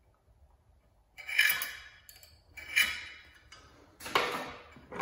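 Steel hand scribe scratching along a steel rule and a layout-fluid-coated steel tube: three short metallic scrapes, about a second in, near the middle and near the end, each ringing briefly as the steel resonates.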